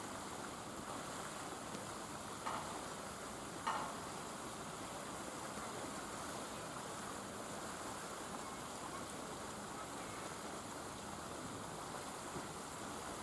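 Steady background hiss, with two short sharp sounds about two and a half and nearly four seconds in, the second one louder.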